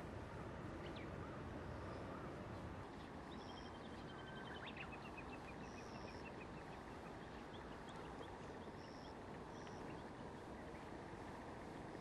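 Faint, scattered calls of small birds: short high whistles, a quick trill about four seconds in and a few falling chirps. Under them runs a steady low rumble of outdoor background noise.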